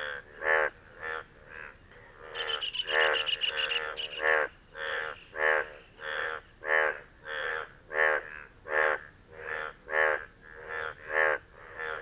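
Indian bullfrog croaking its mating call: a steady series of short, deep croaks, about two or three a second, alternating louder and softer, as its blue vocal sacs puff out. About two seconds in, a high, fast clicking rattle joins for about two seconds.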